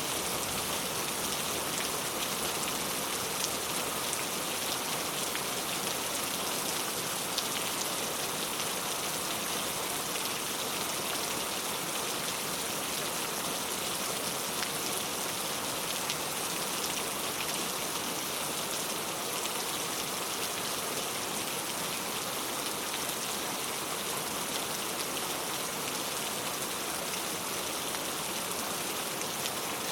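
Heavy rain falling steadily onto surfaces: a dense, even hiss of rain with scattered individual drop hits.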